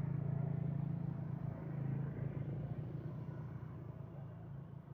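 A motor vehicle's engine passing close by, loudest in the first two seconds and then fading away.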